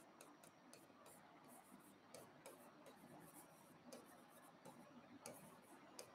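Faint, irregular taps and ticks of a stylus on the glass of an interactive display board as an equation is written out.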